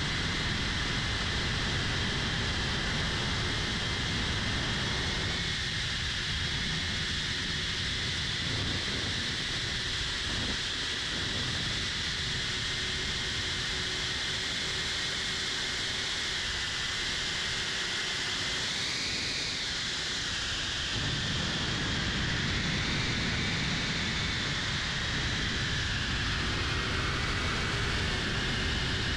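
3-inch cinewhoop FPV drone's motors and propellers whining steadily over a constant hiss. The whine rises and falls briefly about two-thirds of the way through and shifts pitch again near the end, as the throttle changes.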